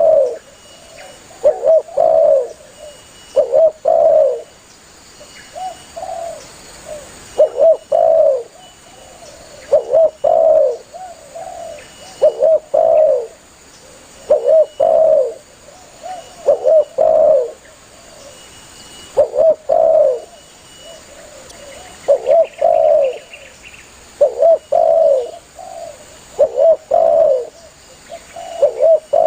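Spotted dove (tekukur) cooing persistently, in phrases of two or three low coos repeated about every two seconds. This is the call used to draw other doves in.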